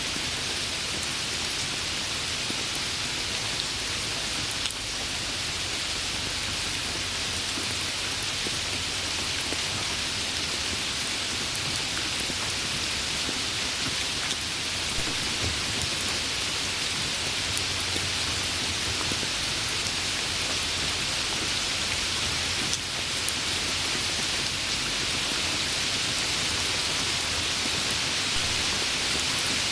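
Steady rain falling on a surface: an even, unbroken hiss with faint scattered drop ticks, growing slightly louder about halfway through.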